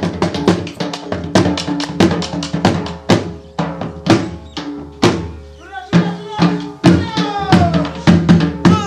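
Dance music with a fast, driving drum beat over a held melodic line. The drumming thins briefly about five and a half seconds in, then comes back with falling melodic glides over it.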